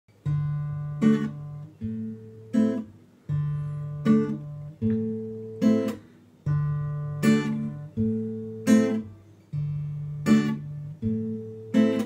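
Solo acoustic guitar playing a song's instrumental intro: a low bass note rings, then two strummed chords follow, the pattern repeating about every three seconds.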